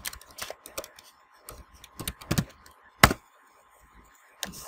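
Computer keyboard keystrokes in irregular clicks as an address is typed, with one sharper, louder click about three seconds in.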